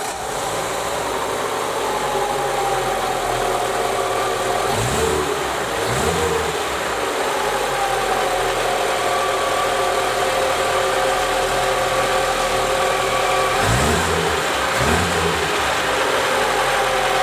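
Lada Niva's four-cylinder engine running steadily at idle with a freshly fitted remanufactured camshaft. It is revved in short blips twice, about 5 and 14 seconds in.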